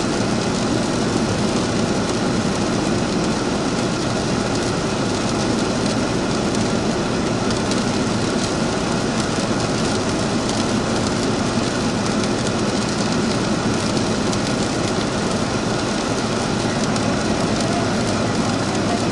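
Steady in-flight cabin noise of a Cessna P210 Silver Eagle turboprop: engine, propeller and airflow heard as one even rush with no change in power.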